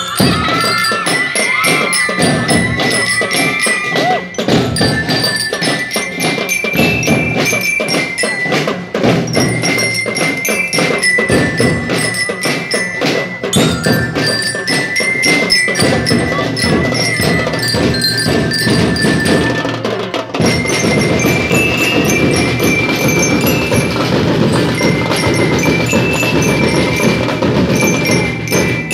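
Drum and lyre corps playing: bell lyres ring out a bright melody over a steady beat of marching drums.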